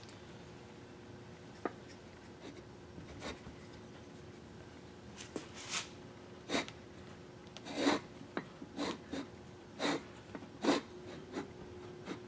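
Cast-iron electric motor housing being handled and fitted back together: light scraping and rubbing with short metallic clicks and knocks. There are a couple of isolated clicks early on, then a run of brief scrapes and knocks in the second half as the parts are worked into place.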